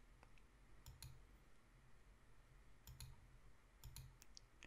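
Near silence with a few faint clicks, mostly in quick pairs, some with a soft low thump under them.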